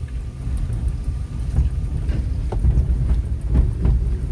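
Car driving along a rough dirt road: a steady low rumble, with a few light knocks.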